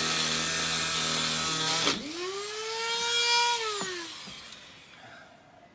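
Small power tool with a cutting wheel grinding on steel, a steady motor whine under a gritty hiss, cutting off suddenly about two seconds in, which fits the little cutting wheel giving up. The motor then spins up again briefly with no grinding and winds down.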